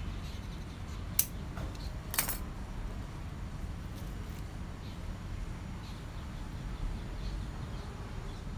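Scissors and plastic zip ties worked at the base of a young bonsai trunk: one sharp snip about a second in, then a short rasping click a second later, over a steady low rumble.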